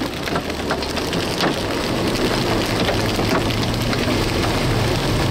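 Rain ticking on a car, the ticks thinning out after the first second or two, while the car's low engine and road rumble grows louder about two seconds in and holds steady as it drives on.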